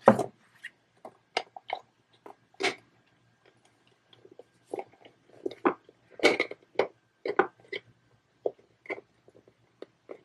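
Irregular clicks, taps and crinkles of hands handling plastic packaging, the loudest right at the start and about six seconds in.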